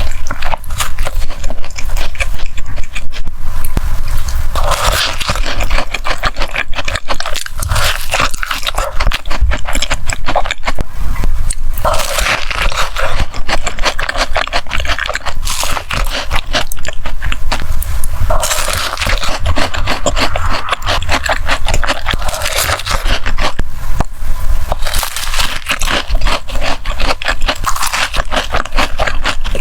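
Close-miked mukbang eating sounds: biting and chewing sweets and cake, with dense crackling and crunching clicks that come in repeated denser stretches.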